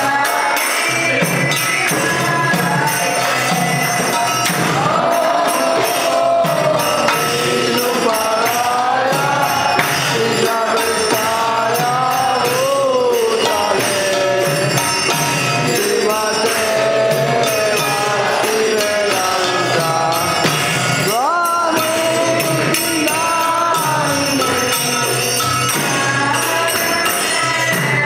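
Devotional kirtan: a group of voices singing a chant to a steady beat from a mridanga drum and jingling brass hand cymbals (karatals).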